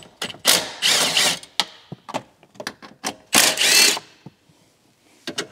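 Cordless impact driver running in two bursts, about a second long near the start and a shorter one about three and a half seconds in, backing out the bolts that hold the factory ECU. There are short clicks between the bursts.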